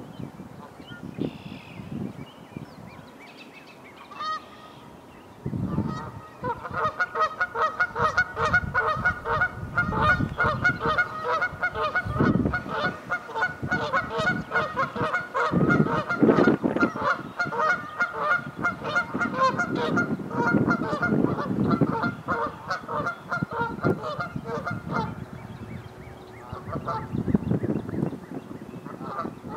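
A flock of Canada geese honking, many calls overlapping in a rapid, continuous chorus. It starts about five seconds in, eases off near the end, then picks up again.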